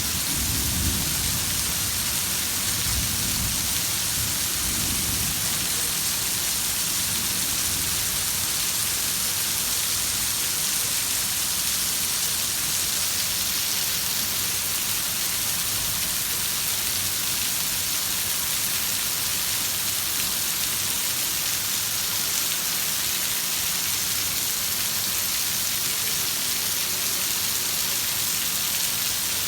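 Heavy rain falling steadily, with a low rumble of thunder dying away over the first few seconds.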